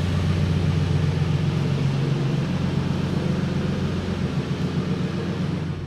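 Nissan Silvia S15 Spec-R's turbocharged SR20DET four-cylinder idling steadily, an even low hum that cuts off abruptly at the end.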